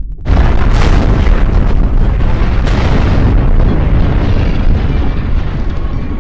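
Logo-intro sound effect: a short rising swell, then a sudden loud hit about a third of a second in, followed by a dense, deep rumble that slowly fades away.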